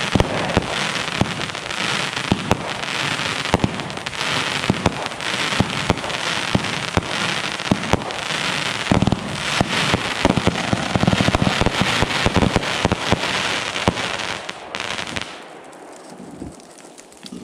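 Powder Keg 'Tweaked Out' 500-gram firework cake firing crackle mines and crackle breaks: a dense, continuous crackling full of sharp pops and launch thumps. It dies away about fifteen seconds in as the cake finishes.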